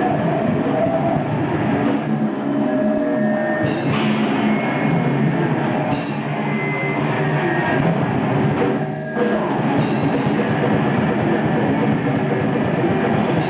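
Heavy metal band playing live: distorted electric guitar and a drum kit, loud and dense, with a short break about nine seconds in.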